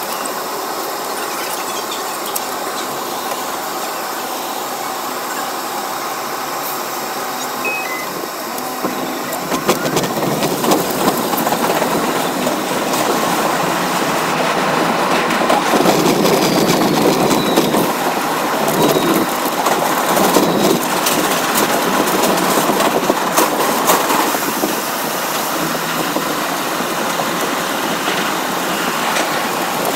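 New York City Subway R62A train, heard from the front car and sped up four times: a steady hum while it stands at the station, then from about 9 s in a louder rush of wheel, rail and traction-motor noise with rapid clicking as it pulls out and runs through the tunnel.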